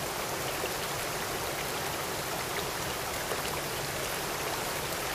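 Water rushing steadily over a concrete weir, an even hiss of flowing and spilling water.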